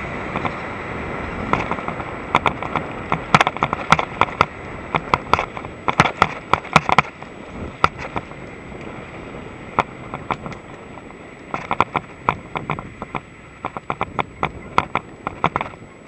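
Full-suspension mountain bike (Mongoose XC Salvo Comp) rolling over a rough sandy dirt track, rattling and clattering with many sharp, irregular clicks as it hits bumps and grit, over steady wind noise on the microphone. The clatter starts a second or two in and comes in dense clusters.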